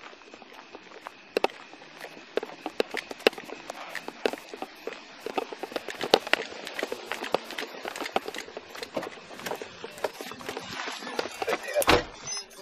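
Footsteps and the knocking and rubbing of gear against a body-worn camera as an officer walks, making irregular clicks and knocks, with a louder thump near the end.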